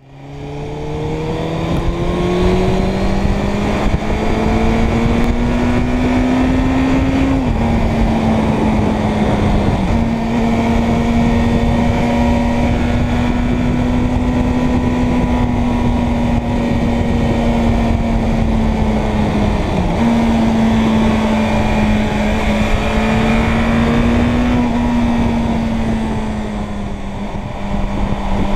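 Suzuki Bandit 600's inline-four engine running under way, heard from on the bike. Its pitch climbs over the first several seconds, drops at a gear change about seven seconds in, then holds a steady cruise with two short dips, easing slightly near the end.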